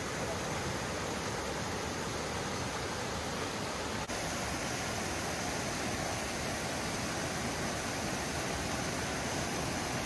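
Mountain creek rushing over rocks and small cascades: a steady, even rush of white water, with a momentary break about four seconds in.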